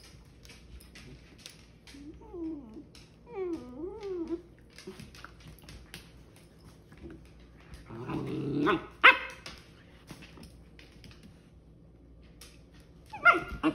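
Puppies play-fighting: wavering, whiny play growls a few seconds in, then a louder growl about eight seconds in followed by a sharp yip, and another yip near the end.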